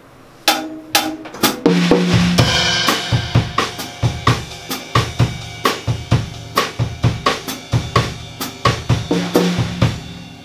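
Acoustic drum kit played hard: three single hits, then a steady fast groove of bass drum, snare and cymbals that stops shortly before the end.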